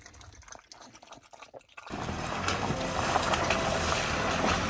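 Water running steadily, starting abruptly about two seconds in after a few faint clicks.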